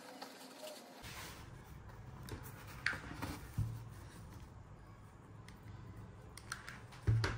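Rustling and handling of a burlap-covered cardboard box, with a few light taps and thumps, the loudest near the end.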